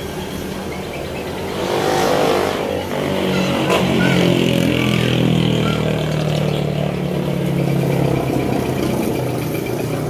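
A motor vehicle engine running close by. It grows louder about two seconds in and stays loud as a low, steady drone for most of the time.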